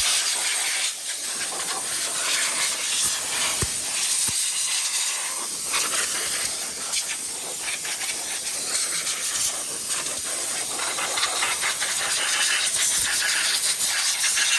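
Compressed-air blow gun hissing steadily as it blasts caked mud and dirt off an ATV engine, the hiss swelling and dropping as the nozzle moves.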